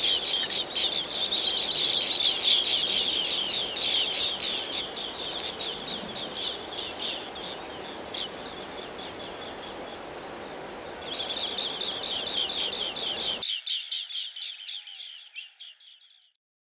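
Asian green bee-eaters calling: rapid runs of short, high, downward-slurred chirps over a steady high insect buzz. The calls thin out for a few seconds in the middle, come back, and fade out near the end.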